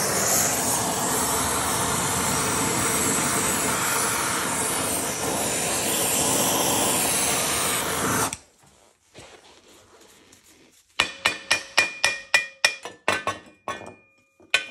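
Oxy-fuel torch flame hissing steadily as it heats a corroded turbocharger-to-exhaust-manifold joint, cutting off abruptly about eight seconds in. Near the end comes a rapid run of about a dozen ringing metal-on-metal strikes on the cast manifold and turbo housing, knocking the corroded joint loose.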